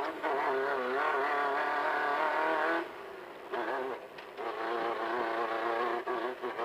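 Off-road race car engine at high revs under load, its pitch climbing and then holding. About three seconds in the engine drops off, then it climbs again and holds, with a few brief dips near the end.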